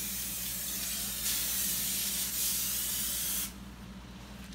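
Aerosol cooking-spray can hissing as oil is sprayed onto a foil-lined baking sheet: one continuous spray that stops sharply about three and a half seconds in.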